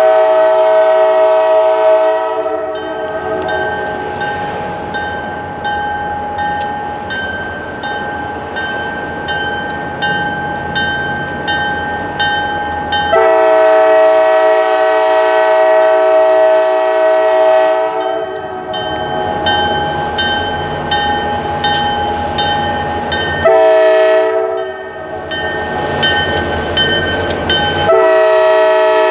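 Approaching freight train's lead diesel locomotive blowing its multi-chime air horn in two long blasts, a short one and a long one, the grade-crossing signal. Between the blasts the locomotives' diesel engines rumble, growing louder as the train nears.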